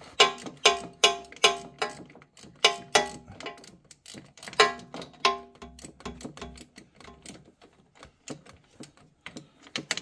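Ratchet wrench clicking in quick groups of strokes, each click with a short metallic ring, loudest in the first half and fainter after. It is working the bolts of a fuel filter mount that spin without tightening.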